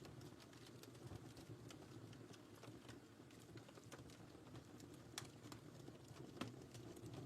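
Wood fire in a fireplace crackling softly: irregular small snaps and pops over a low, steady background, with a couple of sharper pops around five and six seconds in.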